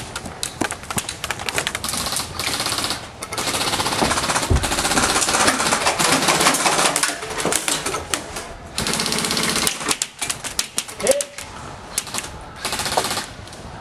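Airsoft guns firing on full auto: long bursts of rapid clicking shots. The longest burst runs about five seconds through the middle, with shorter bursts before and after.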